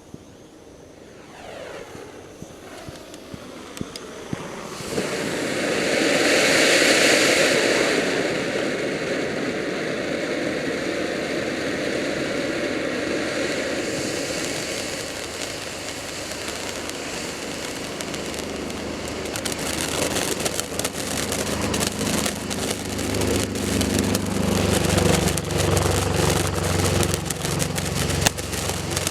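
Soda Pop orange ground fountain firework burning: a spraying hiss that swells a few seconds in, peaks, and holds steady, then turns to dense crackling with a lower rumble in the last third.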